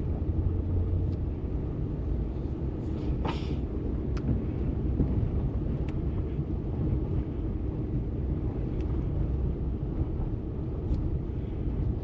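Truck driving on a wet paved road, heard from inside the cab: a steady low rumble of engine and tyres, with a few short ticks, the clearest about three seconds in.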